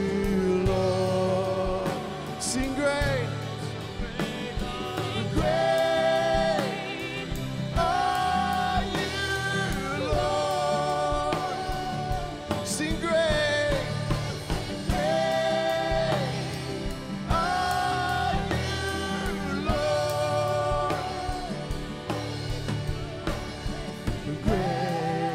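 Live worship band playing a song: voices singing long held notes over drums, acoustic guitar and keyboard.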